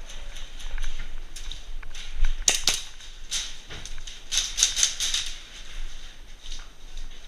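Airsoft guns firing in a small indoor space: sharp snapping cracks, two in quick succession about two and a half seconds in, another a second later, then a rapid string of shots around four and a half to five seconds in.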